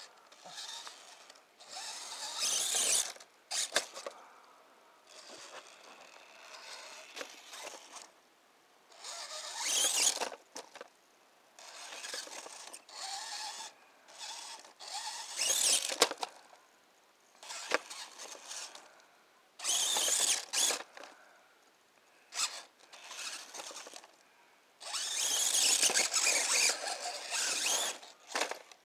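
Axial electric RC rock crawler's motor and gear drive whining in about nine stop-start spurts of a second or three each as the throttle is blipped on and off.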